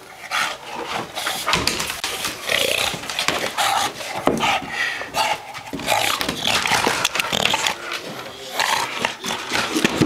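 An English bulldog's breathing and grunts as it mouths and carries a long stick, with the wood knocking and scraping irregularly on wooden deck boards.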